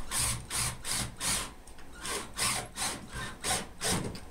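Screw being turned by hand through vinyl J-channel into wooden trim: about ten rasping strokes, one with each twist of the screwdriver.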